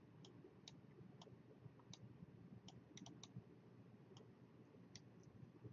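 Near silence broken by a dozen or so faint, irregular clicks: a stylus tapping on a pen tablet during handwriting.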